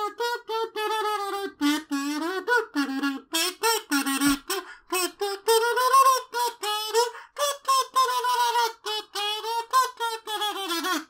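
Plastic kazoo hummed through in a long string of short, buzzy, wavering notes, mimicking a clown police siren.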